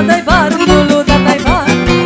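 Romanian wedding-band dance music in the sârbă and horă style: a fast, steady beat of about four strokes a second under a melody full of quick trills and turns.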